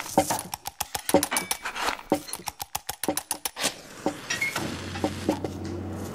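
A rapid, irregular run of sharp clicks and taps, with a low steady hum coming in about halfway through.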